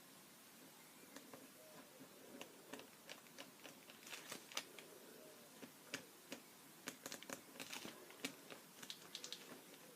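Faint, irregular small clicks and taps of a pen tip on paper as short strokes are drawn, busiest through the middle and later part.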